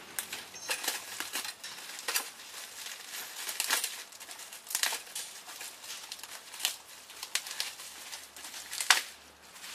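Sticky packing tape being peeled and ripped off a packaged light kit, with crinkling of the wrapping: an irregular run of crackles and short rips, with one sharper rip about nine seconds in.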